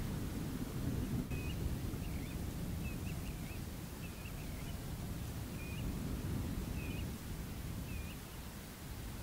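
A bird calling in short, high chirping notes, repeated about once a second, over a steady low rumble.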